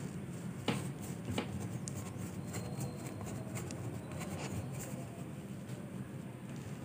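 A cloth rubbing over a shoe's rubber sole, wiping off dried shoe-cleaner cream: a run of soft scuffing strokes, with two sharp clicks in the first second and a half, over a steady low hum.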